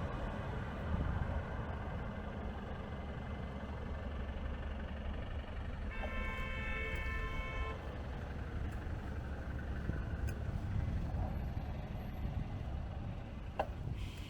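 A car horn sounds once about six seconds in, one steady tone held for under two seconds, over a steady low rumble of wind on the microphone and road noise while riding.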